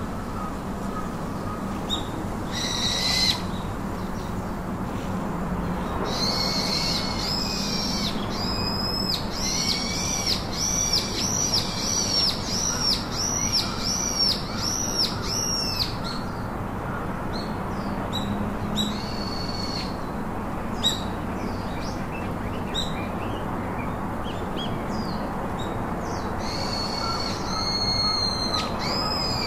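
A bird calling: a run of about a dozen short, arched, whistled notes, about three every two seconds, with a few more near the end, over a steady background hiss.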